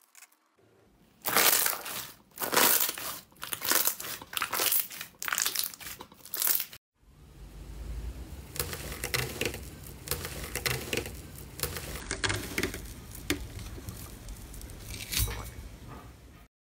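Slime being squeezed and worked by hand, with crinkly, crackling sounds: first a series of loud separate squeezes, then, after a cut about seven seconds in, steadier, softer crackling with scattered pops.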